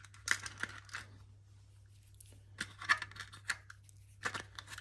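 Small plastic LEGO pieces being picked from plastic storage drawers and dropped into a clear plastic bag: light clicks and bag crinkles in short clusters, with a quiet second or so in the middle.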